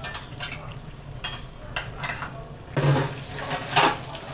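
Fish pieces frying in hot oil, sizzling steadily, with several sharp metallic clinks and clatters from a ladle in a steel pot and a pot lid being handled; the loudest clatters come about three and four seconds in.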